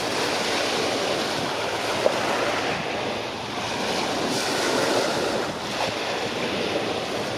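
Sea waves washing and splashing, with wind gusting over the microphone. A single sharp tick sounds about two seconds in.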